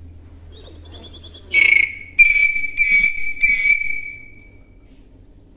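Common hill myna calling: a short harsh note about a second and a half in, then three loud, high whistled notes on one steady pitch in quick succession, the last trailing off.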